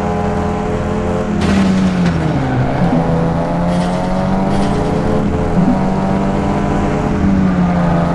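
Vehicle engine running steadily, its pitch dipping and climbing back a few times.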